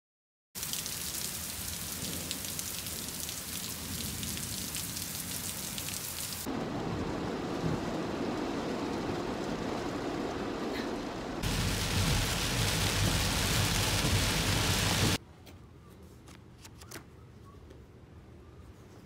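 Steady rain noise that changes abruptly twice, the middle part deeper, then cuts off suddenly about 15 seconds in, leaving faint quiet room sound.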